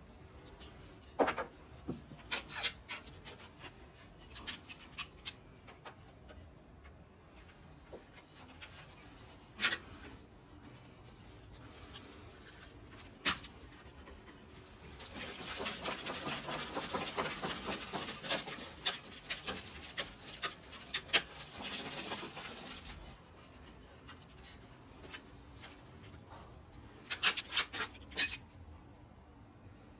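Hand work on an air-conditioner installation: scattered sharp clicks and knocks, with about eight seconds of dense scraping and rubbing noise midway, and a quick cluster of clicks near the end.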